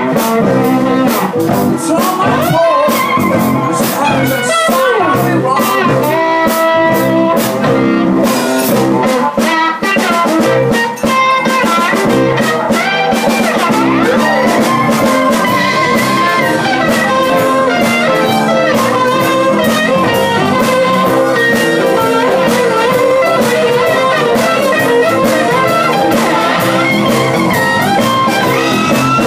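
Live blues-rock band playing an instrumental passage: an electric guitar leads with bent notes over bass guitar, drums and keyboard.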